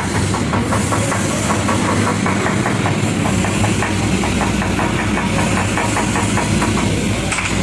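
Engine of a welding machine running steadily, with a constant hiss over it.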